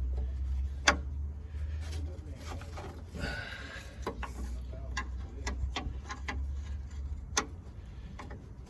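Hand ratchet wrench clicking in short runs as a rusted bolt is worked loose, with two sharper metal knocks, one about a second in and one near the end, over a steady low hum.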